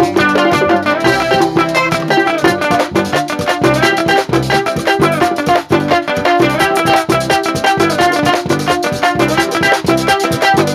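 Live band playing an instrumental passage: guitars over timbales and a hand drum keeping an even, quick beat.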